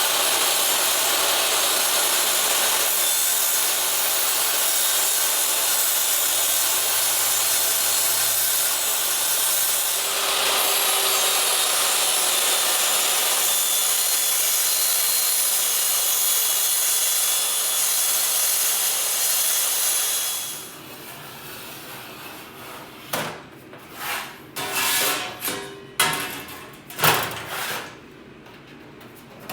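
A power tool running steadily on 18-gauge sheet steel, then stopping abruptly about twenty seconds in. Several sharp metal knocks follow as the sheet is handled.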